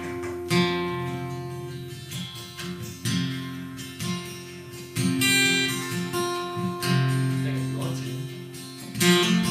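Acoustic guitar strumming chords, a new strum ringing out about every two seconds.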